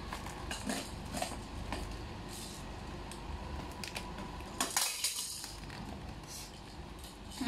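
Plastic packaging crinkling and crackling as a toy is unwrapped, with scattered light clicks and rattles of plastic toys; the loudest crackle comes a little under five seconds in.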